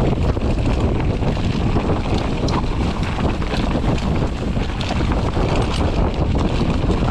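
Wind buffeting the camera microphone as a Mondraker Foxy enduro mountain bike rolls down a rocky dirt trail, with a steady rumble of tyres over the ground and scattered small clicks and rattles from stones and the bike.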